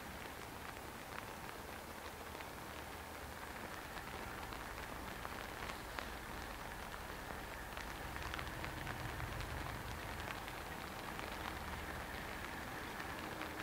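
Steady rain falling, a hiss with scattered faint drop ticks, and a faint low rumble swelling and fading around the middle.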